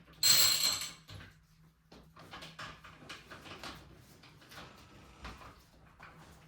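Mountain bike being handled onto a repair stand: a loud rattle with a high ringing edge lasting about half a second near the start, then scattered light knocks and clicks.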